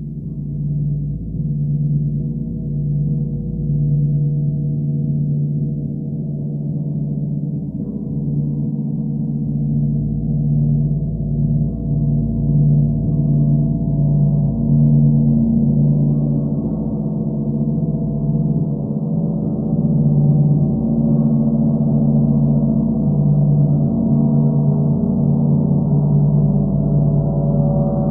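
Gong played with a traditional mallet, ringing in a sustained, dense wash of deep tones. Its low hum throbs in a steady pulse, and the sound gradually builds louder as the playing goes on.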